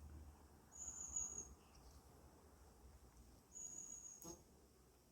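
Faint, thin high-pitched call from a small creature, each about half a second long, heard twice about three seconds apart; a light click just past four seconds.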